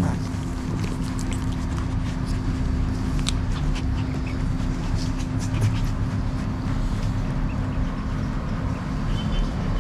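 Dog sounds from a Siberian husky and her puppies over a steady low hum.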